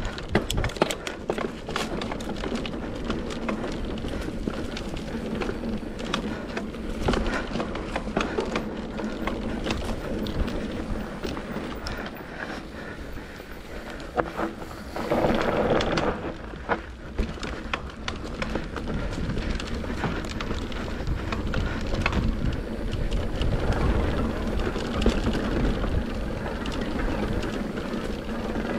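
XC-trail mountain bike riding down a dry dirt trail: a steady rush of tyre and wind noise with frequent knocks and rattles from the bike over bumps, and a louder rush of noise about fifteen seconds in.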